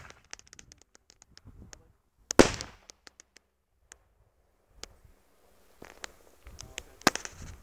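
Three-inch aerial firework shell bursting high up about two seconds in: one loud bang that trails off over about half a second. Scattered faint pops and crackles follow, then another sharp crack near the end.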